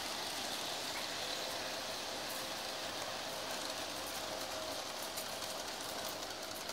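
O scale model train running on an outdoor garden track: a steady rolling hiss with a faint, thin motor whine.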